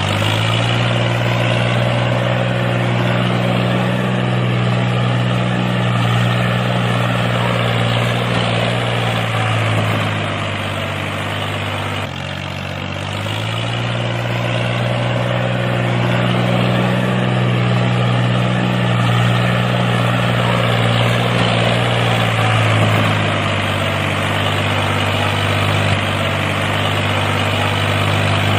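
Tractor engine running steadily at a low pitch. Twice its speed sags and then picks back up.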